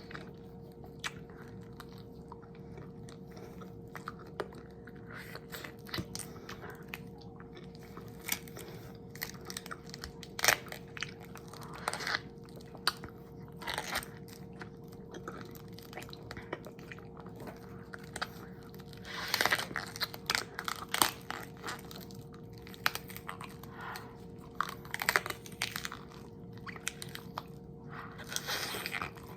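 Close-miked eating: crunchy bites and chewing in irregular strokes, with a louder run of crunches a little past the middle. A faint steady hum runs underneath.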